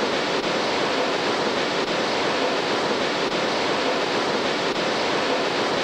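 Steady, even roar of Victoria Falls' water rushing down the Zambezi gorge.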